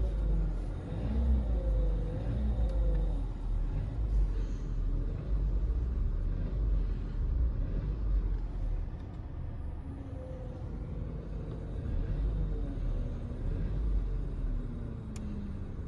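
Low road and engine rumble inside a moving car with a VW-group 1.4 TSI (CAXA) engine, overlaid by a wavering moaning tone that slides up and down in pitch. It is the weird noise the owner attributes to the air-conditioning system and asks whether it is normal.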